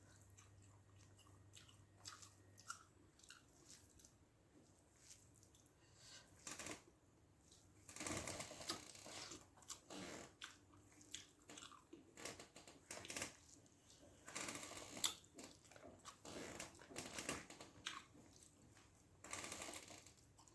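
Close-up eating sounds of rice and mackerel fish gravy: wet chewing, smacking and squishing in irregular clusters of short clicks, heavier in a few stretches.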